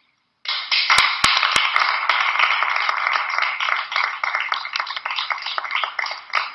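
A small audience applauding, starting suddenly about half a second in and carrying on steadily.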